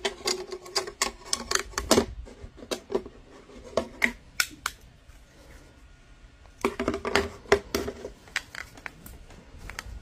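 Hard 3D-printed plastic parts clicking and knocking together as they are handled and fitted, in irregular sharp taps that come in two busy clusters with a lull between.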